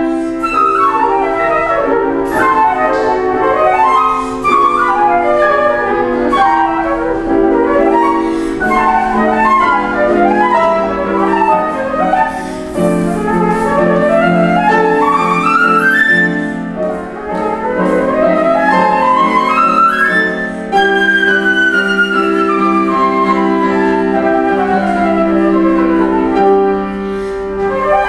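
Flute and piano playing together: the flute carries the melody in fast runs up and down, over sustained piano accompaniment.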